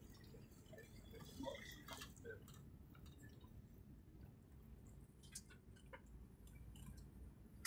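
Near silence, with a few faint clicks and ticks.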